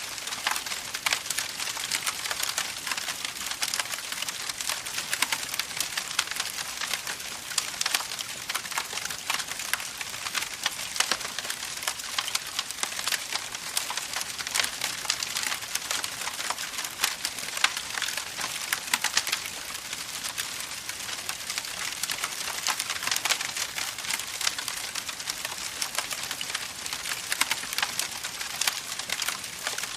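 Wood campfire crackling steadily: a dense run of small sharp snaps over a soft hiss.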